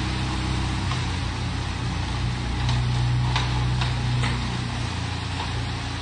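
Self-loading concrete mixer's diesel engine running steadily, picking up a little in the middle, with a few sharp knocks at about the same time.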